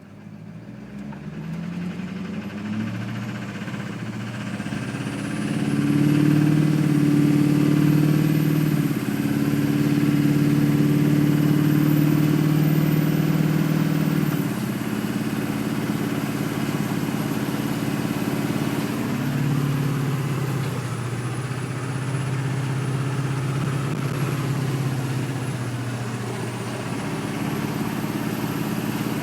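Duramax LB7 6.6-litre V8 turbodiesel engine running. It rises in pitch over the first few seconds, then holds at steady speeds that shift several times, with a thin high whine above it that follows the engine speed. The owner suspects bad injectors, with black smoke and fuel knock.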